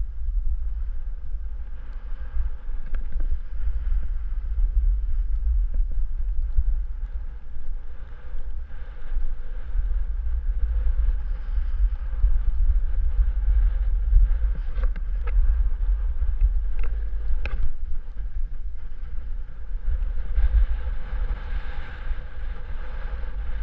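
Wind buffeting the microphone with a steady low rumble, over a hiss that grows somewhat louder near the end and a few faint light clicks.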